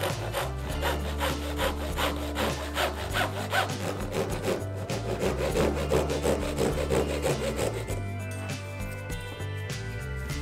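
Fine-toothed handsaw cutting through a small, thin piece of plywood in quick, rhythmic strokes. The sawing stops about eight seconds in.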